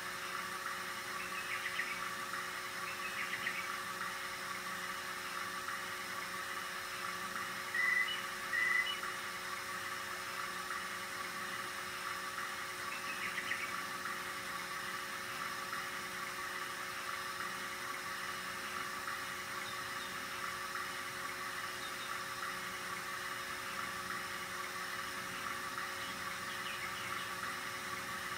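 RCA 3700F cassette deck's tape transport running: a steady mechanical whir from its drive motor, belt and flywheels. About eight seconds in, two short high chirps come a little under a second apart.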